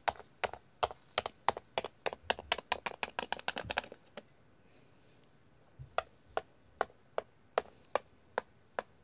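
Light clicking taps of a small plastic toy on a wooden floor: a fast run of about five a second for the first four seconds, then a slower, even run of about two or three a second from about six seconds in.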